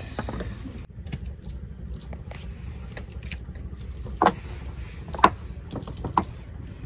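Scattered small clicks and taps of hands baiting hooks on a long fishing line, with three sharper clicks about four, five and six seconds in, over a steady low rumble.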